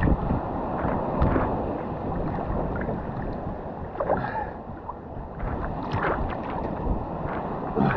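Seawater sloshing and splashing against an action camera held at the surface, a steady muffled wash with a deep rumble and several louder splashes as small waves slap it.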